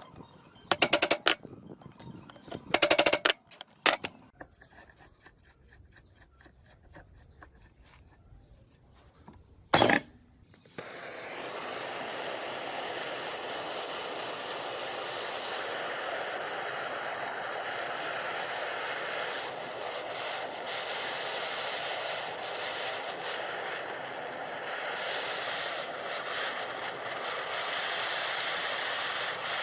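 A few sharp metallic knocks, then from about eleven seconds in a power tool or motor starts and runs steadily, a hissing noise with a thin high whine.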